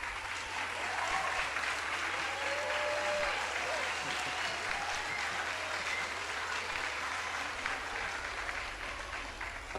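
An audience applauding steadily for several seconds, fading away near the end, with a few faint voices among the clapping.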